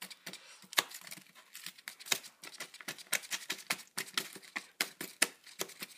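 Kitchen knife chopping charred carrots on a cardboard box: quick, irregular taps and clicks of the blade striking through the carrot into the cardboard, several a second.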